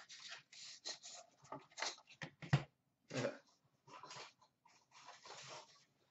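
Cardboard box and plastic card case handled: irregular rustling with a few sharp clicks and knocks as the encased card is taken out of its box and set down. The sharpest click comes about two and a half seconds in.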